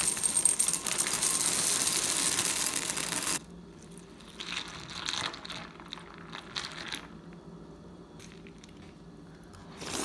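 A loud steady hiss that cuts off suddenly a little over three seconds in, then a few short crinkling rustles, as of packaging being handled.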